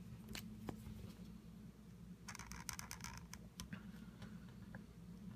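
Marker pen nib scratching faintly across card as lines are inked, a cluster of short strokes about two to three and a half seconds in, over a low steady hum.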